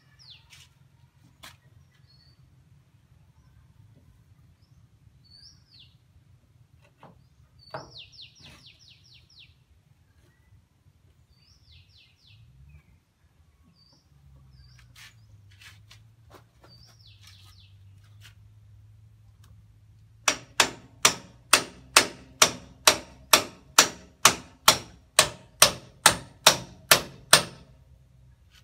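Scattered bird chirps, then about seven seconds of steady hammer blows, roughly two and a half a second, ringing on the steel kingpin and hub assembly of a Tafe 45 DI tractor's front axle during a kingpin bearing replacement.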